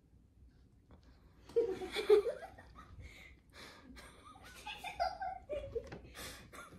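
A woman laughing and giggling in short breathy bursts, starting about a second and a half in after a quiet opening.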